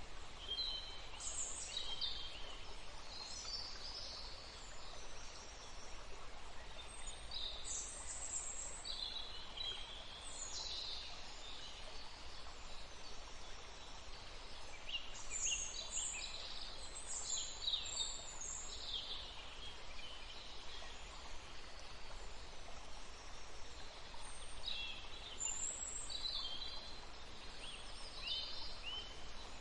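Birds chirping in short clusters that come and go every several seconds, over a steady even rush of flowing water.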